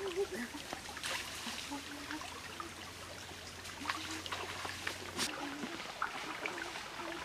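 Shallow stream trickling over rocks, with a few faint short splashes.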